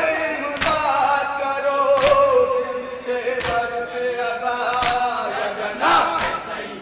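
A man chanting a nauha, a Muharram lament, in long, held, wavering melodic lines. Sharp thumps fall about every second and a half, five in all, keeping time with the chant: the chest-beating (matam) that goes with a nauha.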